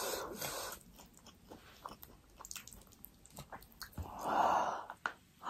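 Close-miked chewing of spicy ramen noodles, with light clicks of a fork and spoon against the plate. The mouth sounds swell louder for a moment about four seconds in.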